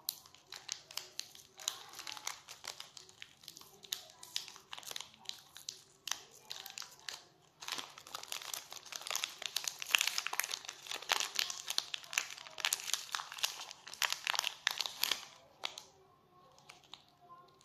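Crinkling of a candy-bar wrapper being twisted, torn and peeled open by hand: a dense run of small crackles, busiest and loudest in the second half, dying away about two seconds before the end.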